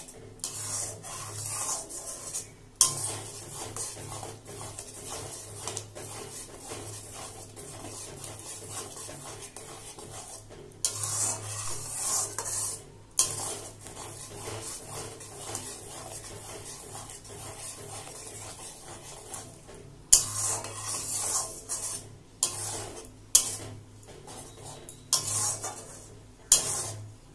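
A spatula scraping and stirring thick yogurt masala around a kadai in uneven bursts, with a few sharp knocks of the spatula against the pan. The yogurt curry is being stirred continuously on a low flame.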